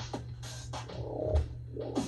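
Marker squeaking and scratching across paper in short, repeated coloring strokes, over a steady low hum.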